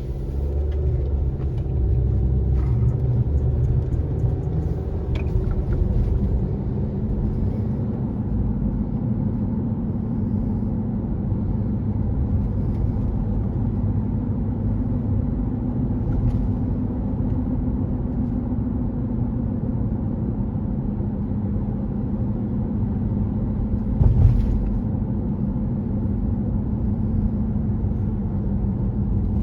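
2018 Honda CR-V at road speed: a steady low rumble with a loud droning hum over it that rises a little in pitch and then holds, and one brief thump near the end. The hum has persisted since new and goes away with the front wheels lifted, and the owner suspects a bad hub bearing assembly or the tires.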